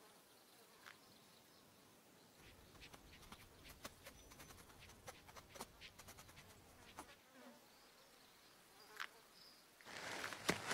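Near silence with faint insect buzzing and scattered small ticks. Near the end a louder scratchy rustle starts.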